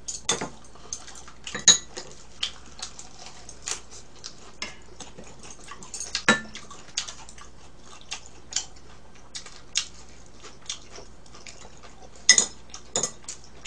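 Chopsticks and utensils clicking and clinking against bowls, plates and the grill plate during a meal: scattered sharp clicks, the loudest about two seconds in and again near the end.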